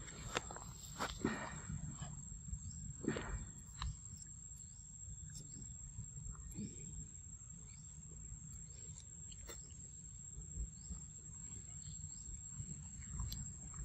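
Forest ambience: a steady high-pitched insect drone over a low rumble, with a few short sharp sounds in the first four seconds.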